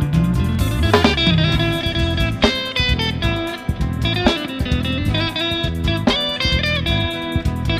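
Instrumental break in a live gospel song: a guitar plays sustained melody notes, with one bent or sliding note about a second in, over bass and a steady rhythmic beat.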